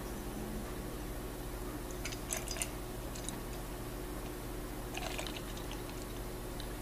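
Beer poured in a steady stream from a can into a tall IPA glass, with small clusters of clicks and crackles about two seconds in and again about five seconds in.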